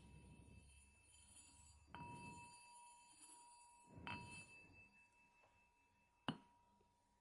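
A small bell struck three times, about two seconds apart, each strike ringing on with a clear high tone; faint, with the last strike the loudest.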